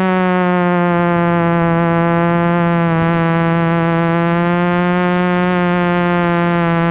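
Drone motors and propellers buzzing steadily at one pitch, heard close up from the camera on the drone itself. The pitch rises slightly at the start, then holds.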